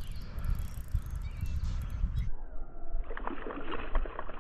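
A low rumble on the microphone, then from about three seconds in a hooked fish splashing and thrashing at the water's surface as it is played on the line.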